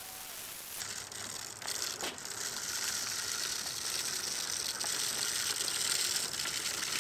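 ECHO RB-60 push broadcast spreader rolling along, its wheel-driven spinner throwing salt across the pavement: a steady hiss with a few sharp clicks, growing louder from about a second in as it nears.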